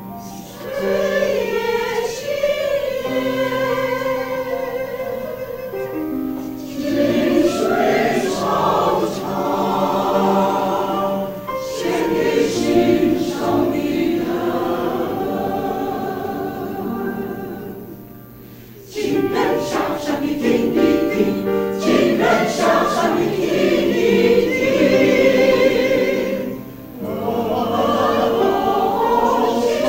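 Mixed choir of men's and women's voices singing a Chinese song, in long phrases with short breaths between them about six seconds in, around eighteen seconds and near twenty-six seconds.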